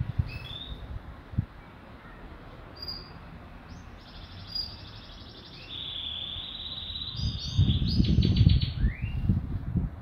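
Caged domestic canaries singing: short whistled notes and rapid trills, busiest in the second half. A low rumbling noise on the microphone comes in near the end and is the loudest sound there.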